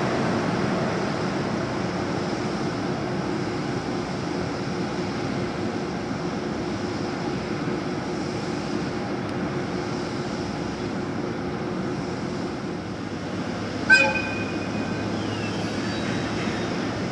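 EH200 electric freight locomotive standing at a halt after dynamic braking, giving off a steady hum and rumble that eases slightly as it settles. About fourteen seconds in comes one short, sharp, high-pitched squeal or toot.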